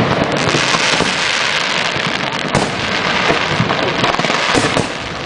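Fireworks display: a dense, continuous crackle and hiss from bursting aerial shells and ground fountains, broken by sharp bangs, one of them stronger about two and a half seconds in.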